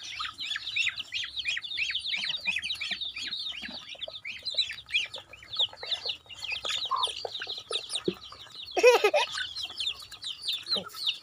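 A flock of chickens and ducks feeding, with a constant run of quick, high peeping chirps. About nine seconds in comes a louder, lower squawk.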